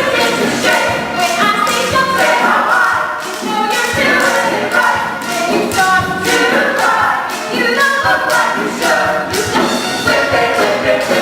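A chorus of voices singing a musical-theatre number over band accompaniment with percussion.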